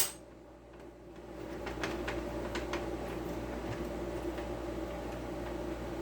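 A steady hum with two even tones fades in over the first couple of seconds and holds, with a few faint clicks of small parts being handled.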